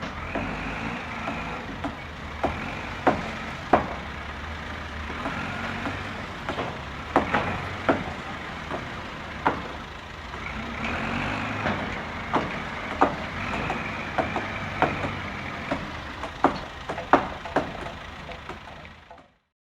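Heavy machinery running steadily on a building site, with irregular sharp knocks about once a second over the engine's rumble.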